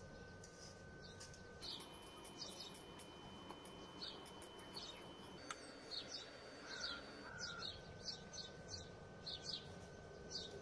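Wire whisk stirring milky kheer in a stainless steel pot, ticking and scraping against the metal sides about twice a second. A faint steady high whine runs underneath and steps in pitch a few times.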